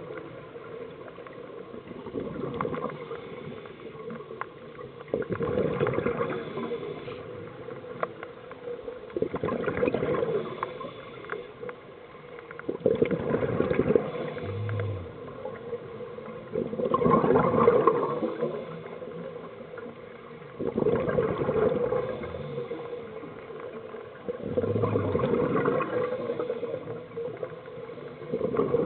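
A scuba diver breathing through a regulator underwater: a rush of exhaled bubbles comes about every four seconds, with quieter stretches between breaths.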